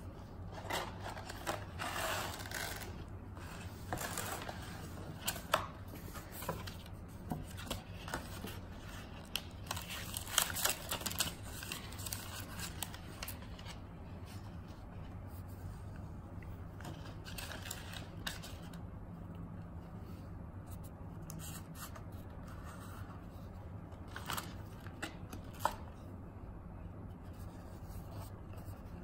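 Hands handling leather wallets and their paper and card packaging: rustling, scraping and scattered clicks, busiest in the first half and sparser later.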